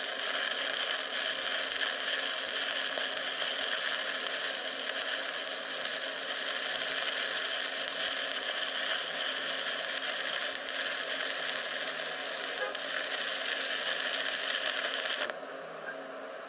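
Stick-welding arc crackling steadily as a weld bead is laid on railroad-rail steel, then breaking off suddenly about fifteen seconds in, leaving a low steady hum.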